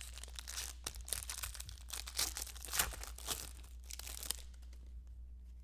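Trading-card pack wrappers crinkling and tearing as packs are ripped open and the cards handled, in an irregular crackle that stops about three-quarters of the way through, over a steady low hum.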